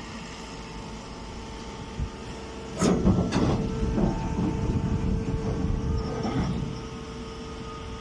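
Hydraulic grass silage baler humming steadily with its power unit running. Nearly three seconds in, two sharp knocks start a few seconds of rough scraping and rustling as a bagged grass bale is shifted out at the baler's outlet.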